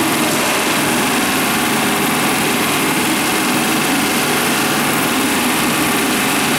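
Pneumatic rivet gun hammering steadily and rapidly from below, driving and locking a rivet into the steel hull plating of a riveted Liberty ship.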